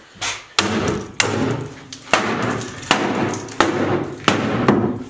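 Hammer blows breaking apart the wooden shelves of a bookcase: about eight sharp strikes, roughly one every three-quarters of a second, each leaving a brief clatter of the wood.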